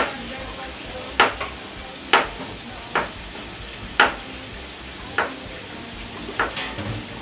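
Chef's knife slicing a peeled potato into rounds on a plastic cutting board: a sharp chop about once a second, two close together near the end, over a steady frying sizzle.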